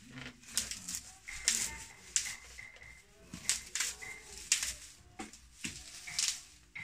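Dry broom straw rustling and swishing as a loose bundle is shaken and handled, in about a dozen short, sharp strokes at an uneven pace.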